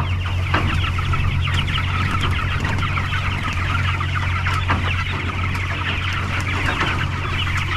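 A flock of young Cornish cross broiler chickens calling constantly, many overlapping high peeps and clucks, over a steady low hum.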